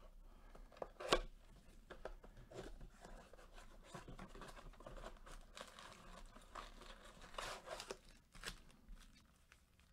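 Plastic shrink wrap being torn and crinkled off a cardboard trading card box as it is handled and opened. There is a sharp crack about a second in, then irregular crinkling and snapping, busiest in the second half.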